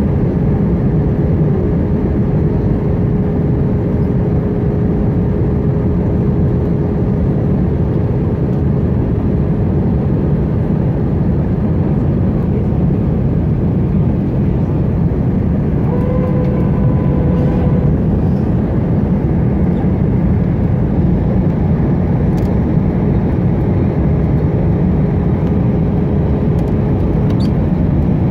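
Airliner engine and airflow noise heard inside the passenger cabin during the landing approach: a steady, loud roar with a faint steady hum running through it.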